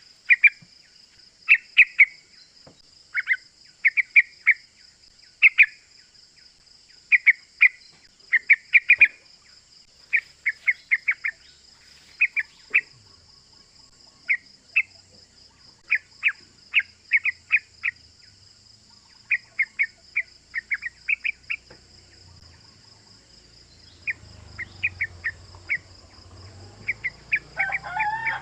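Yellow-vented bulbul (trucukan) calling: quick clusters of two to four sharp chirps, repeated about every second. A steady high hiss runs underneath.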